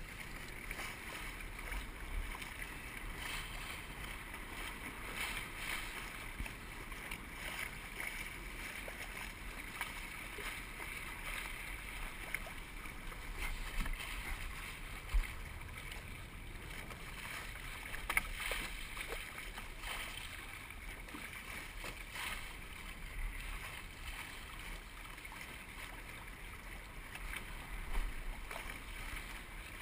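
Musto Skiff sailing dinghy under way, with a steady rush of wind and water along the hull. Three sharp knocks come through: about halfway, a few seconds later, and near the end.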